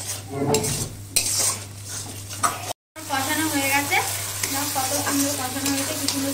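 Spatula stirring and scraping a spiced onion masala frying in oil in a metal kadai, with steady sizzling: the masala is being fried down until the oil separates. The sound cuts out for a moment about three seconds in, and after that a wavering hum runs under the sizzling.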